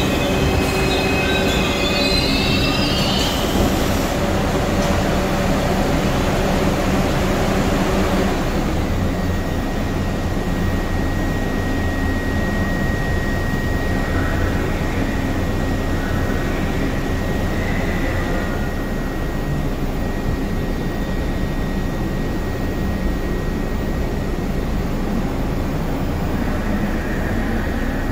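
New York subway train wheels squealing on the rails for the first few seconds, then the steady rumble of the train on the track, with a thin steady whine from about a third of the way in.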